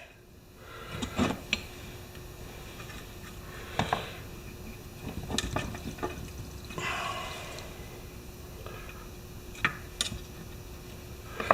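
Small metal carburetor parts and hand tools clinking and tapping on a workbench, with a few sharp clicks spread through and some soft rustling, as a carburetor diaphragm and its cover are handled.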